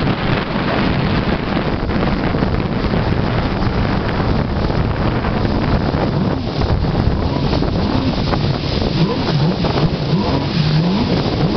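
Jet ski engine running at speed, with wind on the microphone and the hiss of water from the wake. In the second half the engine note rises and falls again and again.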